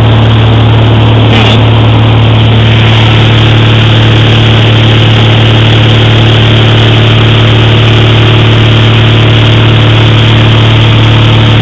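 Light aircraft's engine and propeller droning steadily in flight, heard loud inside the cabin, with a strong constant low hum.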